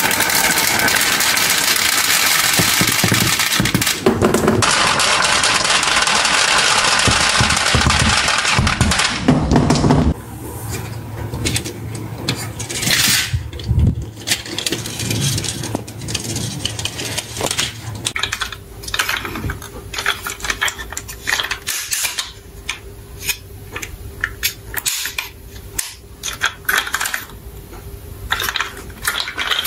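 Many glass marbles roll in a dense stream down a wavy wooden slope and drop into a plastic toy truck bed, making a loud continuous rattling clatter. The clatter stops about ten seconds in. After that come scattered clicks and knocks as the toy trucks are handled and the marbles shift in the truck bed.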